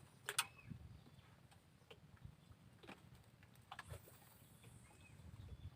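Near silence with a few faint, sharp clicks and knocks, the loudest just under half a second in.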